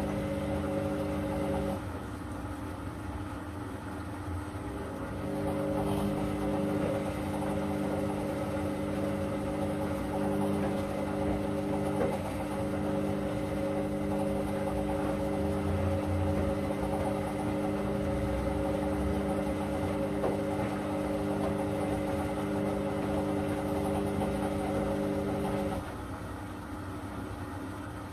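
Candy CS1292D3 front-loading washing machine tumbling its drum in the pre-wash. The drum motor runs with a steady hum and stops briefly about two seconds in. It starts again a few seconds later, runs for about twenty seconds and stops near the end.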